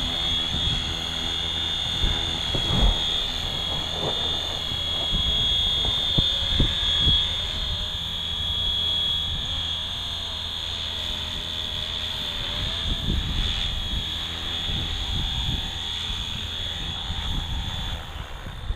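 Flywing 450 V3 electric RC helicopter in flight: a steady high-pitched whine from its motor and rotor that stops near the end as the flight finishes. Wind buffets the microphone throughout with low gusty rumbles.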